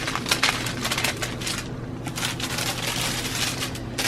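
Rustling and light handling noise as cut sewing pattern pieces are sorted and shuffled by hand, with a string of short crinkles and taps.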